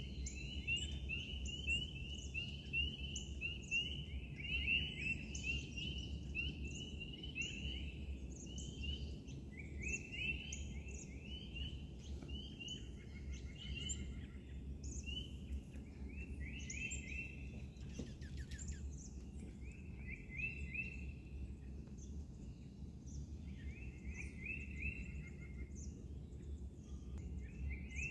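Dawn chorus of wild birds: quick runs of repeated high chirping notes, one after another, over a steady low background rumble.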